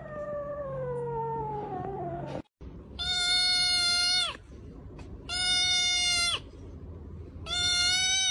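A cat's long meow falling in pitch, then a grey tabby kitten crying out three times as a finger pokes its head: each a loud, steady-pitched cry about a second long.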